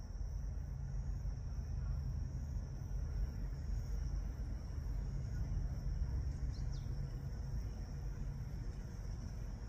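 Outdoor ambience of a steady, high-pitched chorus of crickets or other insects over a constant low rumble.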